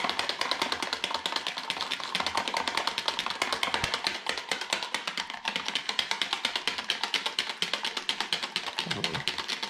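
Small wire whisk clicking rapidly and steadily against the sides of a clear plastic container while stirring yeast into water.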